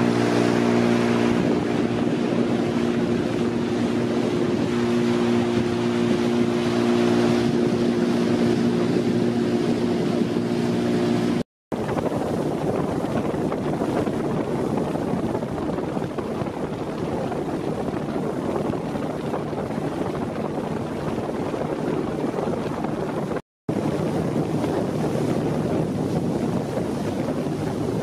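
Motorboat engine running at a steady speed over rushing water and wind on the microphone. After a brief dropout about eleven seconds in, the engine's steady tone fades under the rush of the wake; another short dropout comes near the end.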